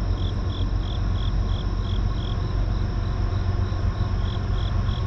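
A cricket chirping steadily, about three chirps a second with a short break partway through, over a low steady rumble from a CSX freight train's diesel locomotives approaching in the distance.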